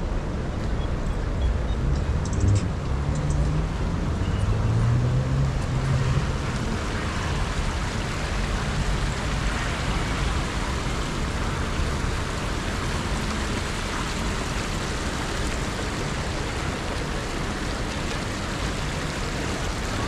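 Steady city traffic noise, with a vehicle engine passing during the first few seconds.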